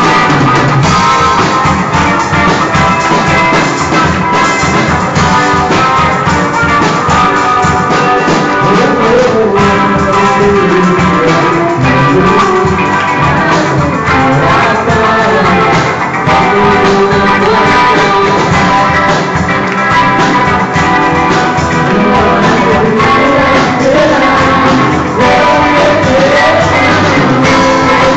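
A band playing a worship song in a rock style, with drums, bass and guitars, and singing over the top.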